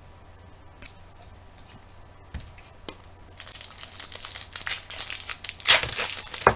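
A foil trading-card pack wrapper being torn open and crinkled: a few faint handling clicks, then steady crackling from a little past halfway that is loudest near the end.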